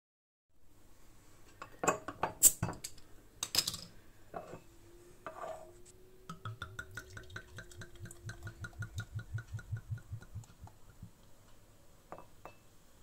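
Glass clinking a few times as the bottle and glass mug are handled, then beer glugging out of a glass bottle into the mug in a fast, regular rhythm for about five seconds, with two light clinks near the end.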